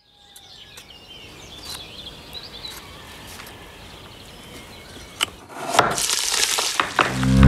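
Birds chirping over quiet outdoor ambience. About five and a half seconds in, a loud sizzle starts as pieces of raw meat drop into a hot pot, with a few sharp knocks.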